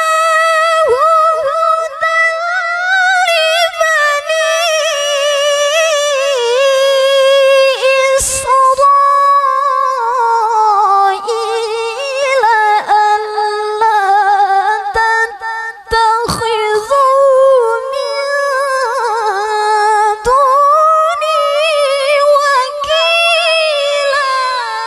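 A woman's melodic Quran recitation (tilawah), sung solo into a microphone. Long held phrases waver and curl in pitch, with a few short breaths between them, and the last phrase falls away just before the end.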